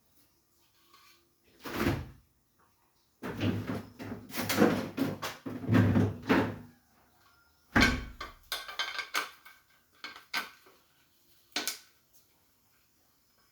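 Metal pressure cooker lid being fitted onto the cooker: a knock about two seconds in, a few seconds of metal clattering and scraping, another knock near the middle, then lighter clicks.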